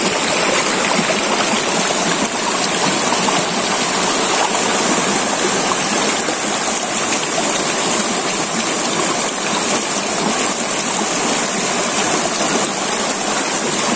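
River water rushing steadily over and around rocks.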